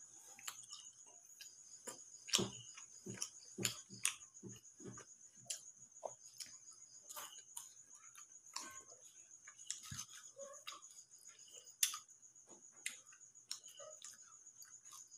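Crickets chirping in a steady high trill, over scattered irregular clicks and chewing noises from a person eating french fries with his fingers close to the microphone.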